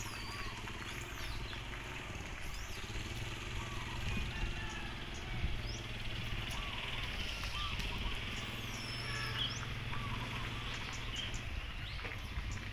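Steady low engine-like rumble with a faint hiss, and birds chirping in short, high, sliding calls.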